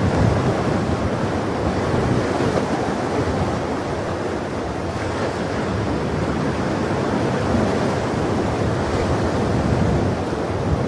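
Sea surf: a steady rush of waves washing in.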